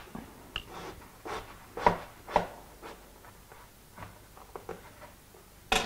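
Chef's knife cutting lengthwise through a raw aubergine and knocking on a plastic chopping board: a series of short, separate knocks and crunches, the loudest about two seconds in.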